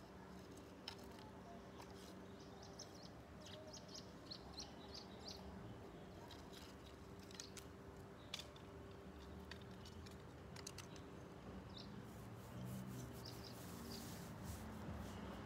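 Puppy gnawing on a wooden stick, with scattered faint clicks and crunches, over a steady low hum and faint bird chirps.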